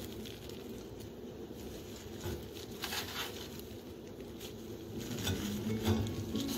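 A disposable plastic glove crinkling in short, scattered rustles as baked cookies are picked off a metal baking tray and set down on a ceramic serving plate.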